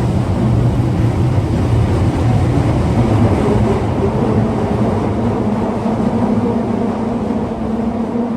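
Subway car 22962, flagged as a noisy car (異音車), running, heard from on board as a steady low rumble with a motor hum. A steady hum grows stronger about halfway through.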